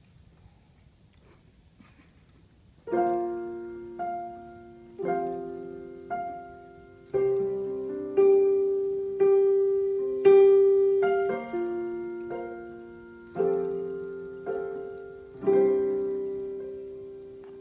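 Yamaha digital piano playing a slow gospel intro: chords struck about once a second, each left to ring and fade. It starts about three seconds in, after a near-silent pause.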